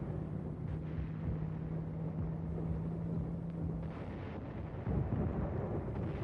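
Tanks on the move: a dense, steady low rumble of engines and tracks, with a steady hum that stops about four seconds in.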